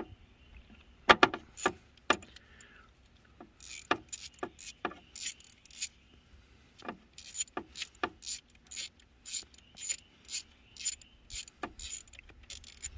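Hand ratchet on a long socket extension clicking as it backs out a coil pack hold-down bolt, in runs of about three clicks a second, with a few metallic clinks of the tools near the start.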